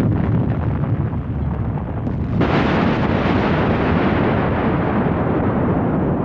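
Underwater explosion of a torpedo warhead set off with a demolition charge at sea: a deep, steady rumble and the rushing of the water column thrown up from the surface. A brighter wash of spray noise sets in about two and a half seconds in.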